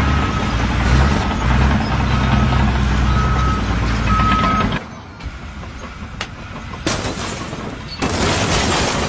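A heavy truck's engine running with its reversing alarm beeping about once a second, the beeps growing louder. About five seconds in, it cuts off, leaving quieter sound with a few sharp clicks, and a burst of noise comes in near the end.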